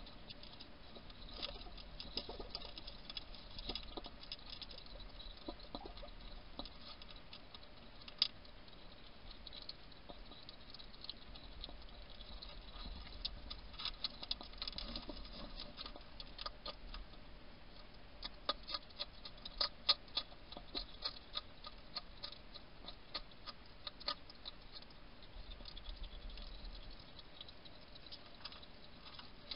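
European hedgehog crunching and chewing dry food pellets from a bowl: a stream of sharp, irregular crunches and clicks, busiest around the middle and a few seconds later.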